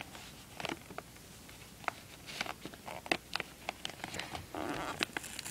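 Hands fumbling with a wrapped present and plush toys close to the microphone: scattered scratchy rustles and light clicks as the child tries to get the present open.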